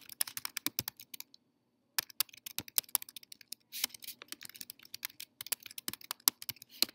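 Typing on a computer keyboard: a quick, irregular run of key clicks that pauses briefly about a second and a half in, then carries on.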